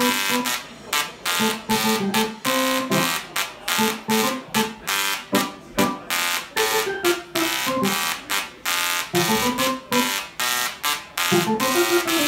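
Musical Tesla coil (DRSSTC) playing a rhythmic bass-style line from a keyboard: a quick, steady run of short, harsh buzzing notes that change in pitch, the sound of the spark discharge itself.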